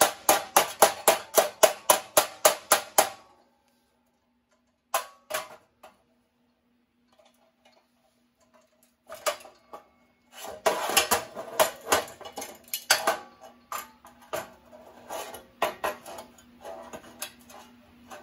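Hammer striking a steel pry bar wedged under sheet-metal automotive bodywork, in rapid ringing blows about four a second that stop about three seconds in. Two single knocks follow, then a longer run of lighter, irregular metal knocks and clanks.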